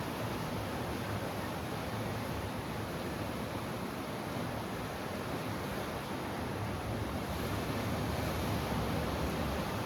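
Steady wash of ocean surf, a continuous rushing noise that swells slightly louder near the end, with some wind on the microphone.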